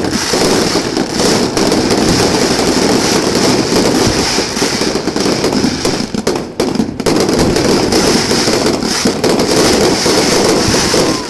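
Fireworks going off in a dense, rapid barrage of crackling bangs, with a brief lull about six and a half seconds in.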